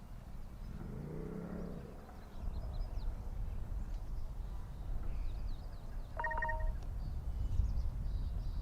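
Outdoor wind rumbling low on the microphone during an open chairlift ride, growing stronger about two and a half seconds in. Faint high chirps come and go, and a short beep-like tone sounds once about six seconds in.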